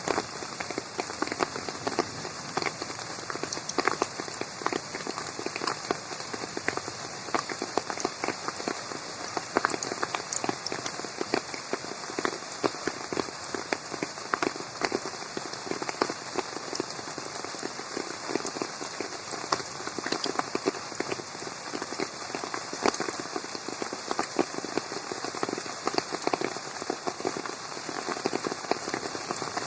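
Steady rain falling on a garden pond, a dense patter of many small drops hitting the water.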